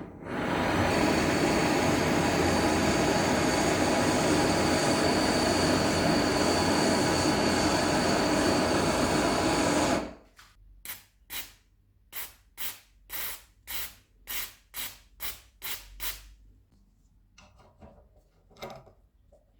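A power tool runs steadily and loudly for about ten seconds, then cuts off. About a dozen short, sharp strokes follow, roughly two a second, from hand work on old garden shears being restored.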